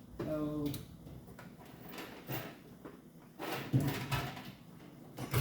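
Handling noises in a small room: several sharp knocks and clatters, the loudest near the end, with a few short stretches of a man's voice between them.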